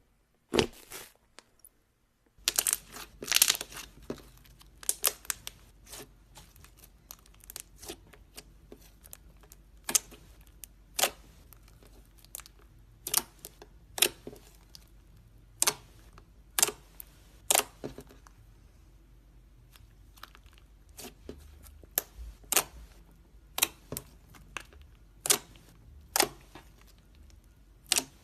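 Slime being handled: a cluster of crinkling, tearing noises a couple of seconds in, then sharp clicks and snaps about once a second.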